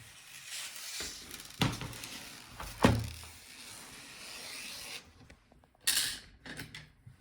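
Plastic laptop bottom case being handled: a few seconds of rubbing and scraping with two sharp clicks, the second the loudest, then another brief scrape near the end.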